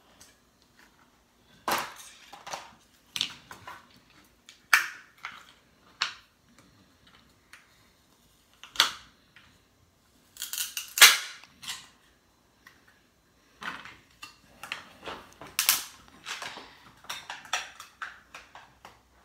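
Sharp plastic clicks, snaps and taps as a Kindle e-reader's screen is pried off its frame with a plastic pry tool on a plastic cutting board. They come at irregular intervals, with the loudest flurry of snapping about ten to eleven seconds in.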